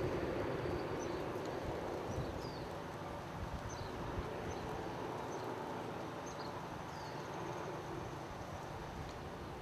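A fading drone from a firefighting aircraft, with faint short high chirps of a small bird repeating about once a second over an outdoor hiss.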